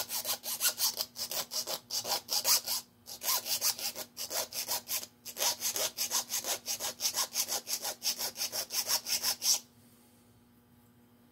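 Hand file stroking back and forth on a small metal part clamped in a lathe chuck, a quick rasping about three or four strokes a second. There are two brief pauses, and the filing stops near the end.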